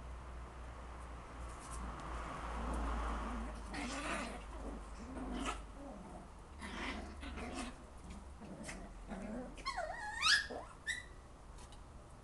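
Puppies play-fighting: short low growls and scuffles, then about ten seconds in a short high squeal that slides up and down, with a brief second squeal just after.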